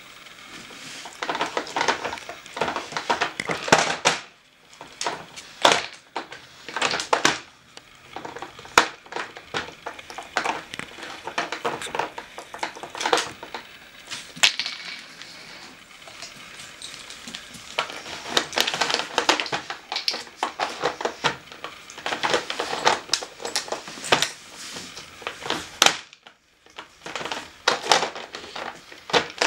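Plastic dog treat puzzle (Nina Ottosson) clattering and knocking on a wooden floor as a dog noses and paws at its sliding pieces and pegs: irregular bursts of sharp plastic clicks and rattles with brief pauses, and a louder knock near the end as the board is tipped up.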